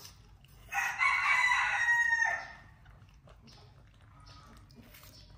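One loud, drawn-out animal call lasting just under two seconds, starting about a second in, high and strained-sounding with its pitch dipping slightly at the end.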